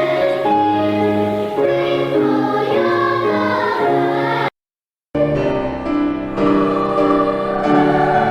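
Children's choir singing held notes in two short passages, cut apart by a half-second silence about four and a half seconds in.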